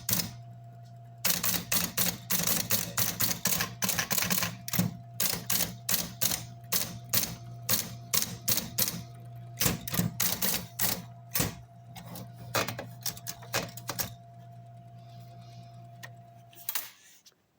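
Adler Meteor electric typewriter with its motor humming steadily under a fast run of key strikes. The typing stops, the motor hums on alone for a few seconds, then cuts off near the end.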